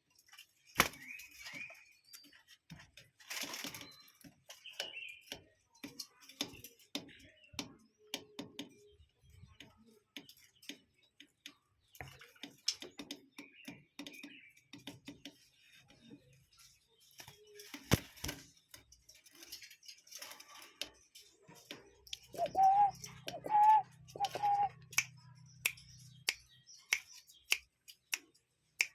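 Many sharp, irregular clicks and taps with a few faint bird chirps. About 22 seconds in, a bird gives three short call notes in a row, each rising at its start.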